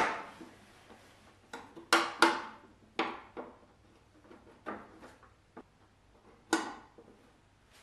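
Hands and tools working steel brake lines loose in a Saab 900's stripped engine bay: scattered sharp metallic clicks and clanks, the loudest right at the start and others around two, three and six and a half seconds in.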